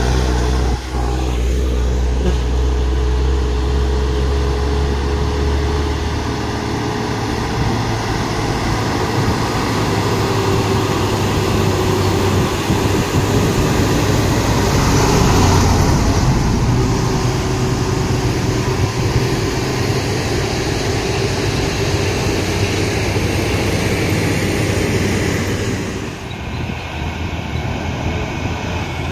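Heavy diesel truck engines pulling up a steep climb, running steadily under load, a little louder about halfway through.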